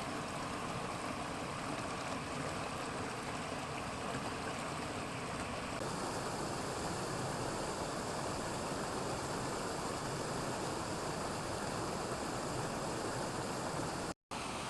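Steady rush of flowing water. The sound shifts abruptly about six seconds in and cuts out for an instant near the end.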